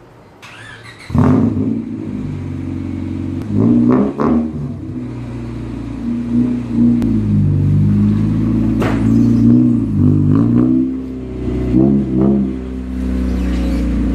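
A Honda Civic engine cranks briefly and catches about a second in, then runs with several short revs rising and falling over a steady idle.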